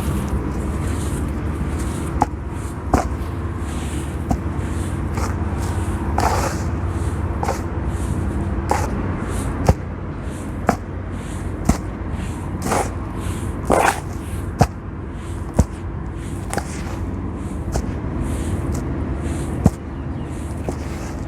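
Crispy packed sand being smashed and crumbled in a little water, giving irregular sharp crunches and crackles about once a second over a steady low hum.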